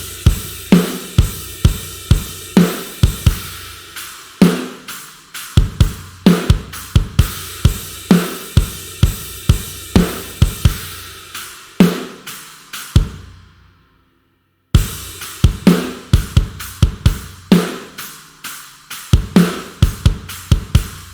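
Sampled rock drum kit from the GetGood Drums One Kit Wonder Aggressive Rock library playing a steady groove of kick, snare and cymbals. The pattern stops and rings out about 13 seconds in, and a second groove starts about a second later.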